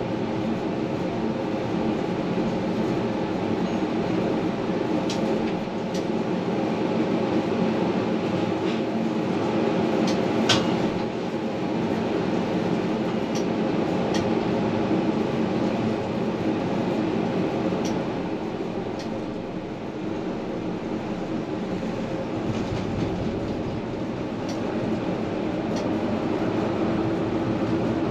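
Tram running along its track, heard from inside at the front: a steady rail rumble with a constant hum, and a few light clicks, the sharpest about ten seconds in.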